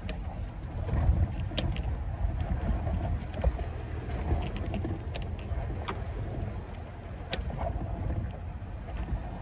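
Four-wheel drive driving slowly over a rough dirt track: a steady low engine and tyre rumble, with a few sharp clicks and knocks from the bouncing vehicle.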